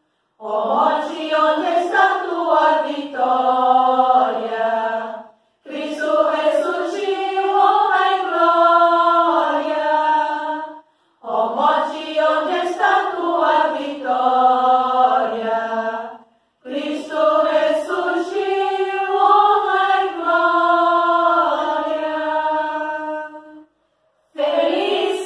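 A small women's choir singing an Easter hymn unaccompanied, in phrases of five to seven seconds with a brief break for breath between each.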